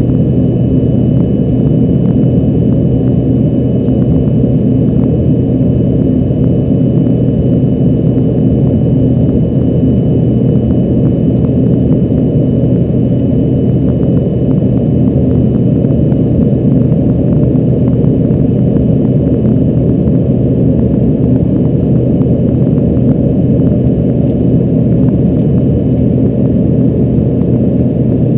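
Embraer ERJ-145's two rear-mounted Rolls-Royce AE 3007 turbofans running steadily, heard inside the cabin as a loud, even low rumble with a steady hum.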